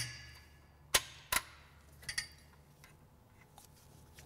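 A few sharp metallic clicks and clanks as the transmission's shift linkage arm is handled: a loud one at the start with a short ring, two more about a second in, a lighter one a little later, then only a faint low hum.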